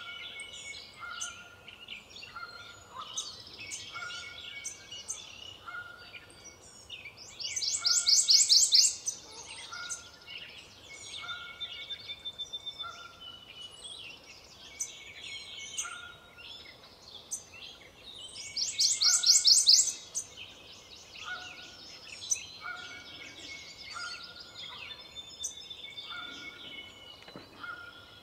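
Prothonotary warbler singing its song twice: each time a loud, rapid run of repeated high notes lasting about a second and a half, the first about a third of the way in and the second about two thirds in. Softer bird calls sound between the songs, including a short note repeating about once a second.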